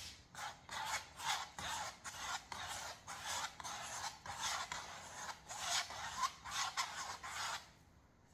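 A thin wooden stick scraping acrylic paint across a stretched canvas in short repeated strokes, about two a second, stopping shortly before the end.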